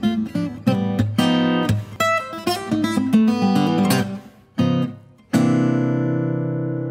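Acoustic guitar playing quick strummed chords, then after a short break one final chord about five seconds in, left to ring and slowly fade.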